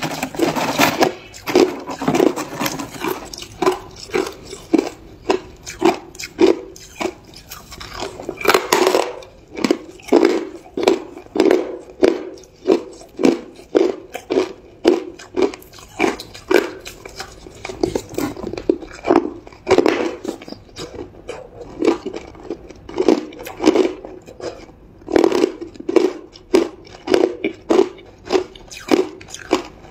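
A person biting and chewing chunks of hard ice: loud, crisp crunches about twice a second, with bigger bites near the start, about nine seconds in and about twenty seconds in.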